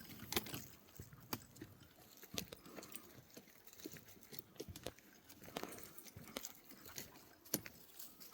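Faint, irregular footsteps on a trail: light taps, clicks and crunches at an uneven pace.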